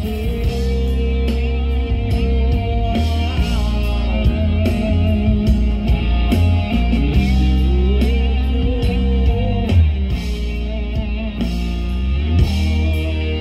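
Live rock band playing loudly through a PA: electric guitar carrying bending melodic lines over bass and a steady drum beat.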